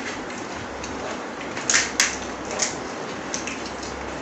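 Crisp fuchka (pani puri) shells cracking as they are broken open by hand: several short crackling snaps, the two loudest a little under two seconds in.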